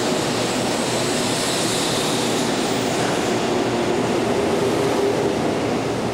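A JR West 100-series Shinkansen (3000 subseries, Grand Hikari) accelerating out of the station past the platform: a steady, loud rush of wheels and running gear. Near the end the tail car goes by and the sound starts to fall away.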